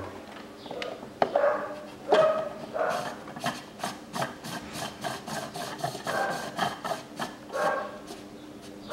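Oil filter housing cap of a Range Rover Sport 3.0 diesel being screwed back into its housing: scraping and rubbing of the threads, with a run of quick, evenly spaced clicks in the middle.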